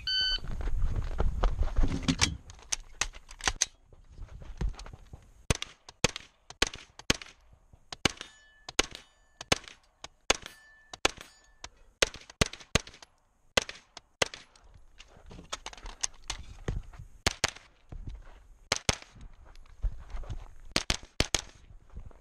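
A competition shot-timer beep, a couple of seconds of loud low rumbling, then a 9mm AR9 pistol-caliber carbine firing string after string of quick shots, mostly in fast pairs, with short pauses between the groups.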